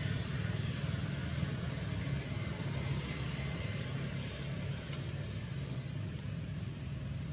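Steady low mechanical rumble with an even hiss over it, like a motor vehicle engine running in the background, unchanging throughout.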